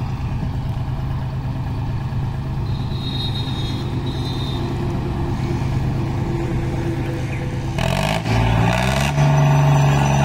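John Deere 5036D tractor's diesel engine idling steadily, then revved up about eight seconds in and held at a louder, higher speed near the end.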